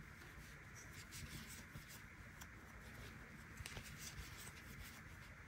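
Faint soft rubbing and a few light ticks of a crochet hook drawing yarn through stitches, over quiet room tone.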